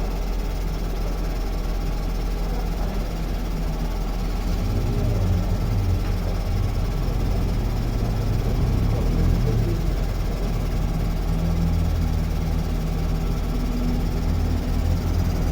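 Ford New Fiesta 1.6 16v Sigma engine running, with the engine noise under diagnosis: the same noise came back after the engine was swapped for another, and earlier workshops had blamed the cylinder head. It gets a little louder about four seconds in.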